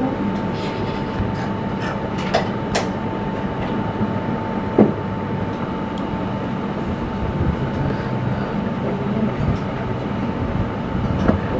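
A steady rushing mechanical noise with a thin constant whine running through it, and a few light clicks and taps scattered through it.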